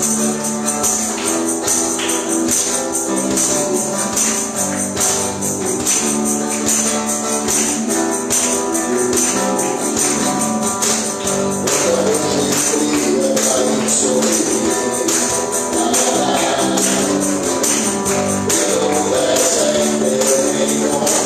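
Live church band playing an upbeat gospel praise song with a steady beat and a prominent tambourine, with voices singing along.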